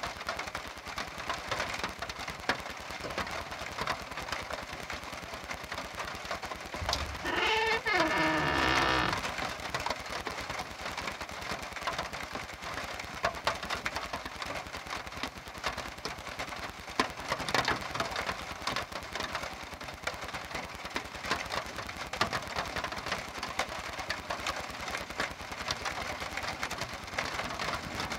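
Steady rain falling, with many fine patters. About seven seconds in comes a single long animal bleat, about two seconds long, that drops in pitch.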